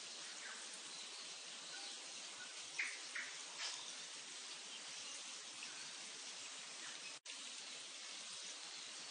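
Faint, steady high hiss of outdoor background noise, with a few short high sounds about three to four seconds in. The sound cuts out for an instant a little after seven seconds.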